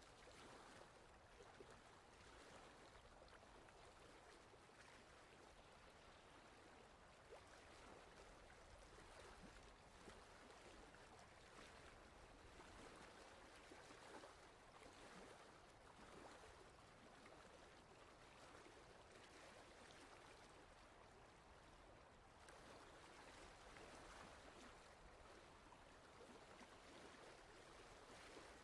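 Near silence: a faint, even noise like hiss or distant running water, swelling and fading slightly.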